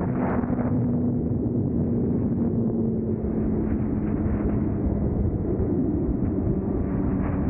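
Suzuki GSX-R600's inline-four engine holding a steady note at cruising speed, under heavy wind rumble on the microphone.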